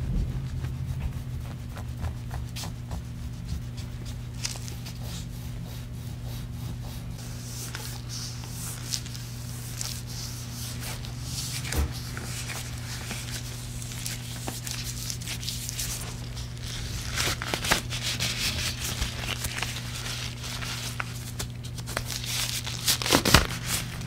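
A curved metal scraping tool and gloved hands rubbing over oiled skin on the soles of the feet, with scraping and many small clicks that grow busier near the end. A steady low hum runs underneath.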